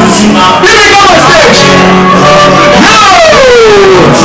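Loud music with a voice singing over it, the voice sliding down in pitch about three seconds in.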